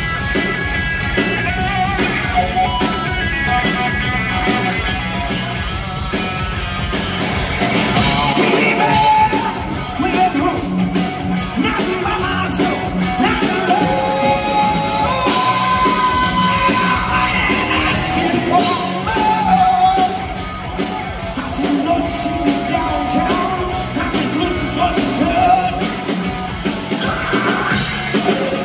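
Live rock band playing, with electric guitar and drums over a steady beat, and a male singer singing the lead vocal into a microphone.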